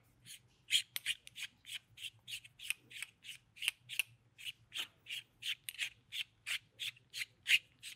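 Metal end cap being screwed by hand onto an FX Maverick air rifle's power plenum tube: an even run of short, scratchy strokes, about three or four a second, as the threads turn and the hands twist and slide on the tube.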